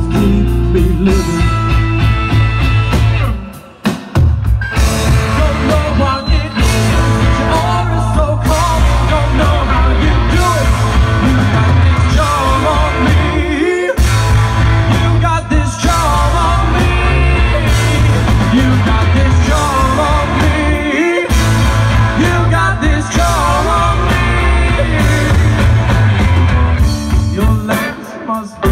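Live rock band playing loudly: electric guitar over a heavy bass line, with keyboard and singing. The music briefly drops out about four seconds in and thins again a couple of times later.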